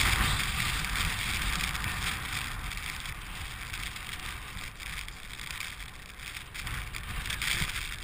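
Strong wind buffeting a helmet-mounted GoPro's microphone, an uneven rushing noise that eases a little past the middle and picks up again near the end.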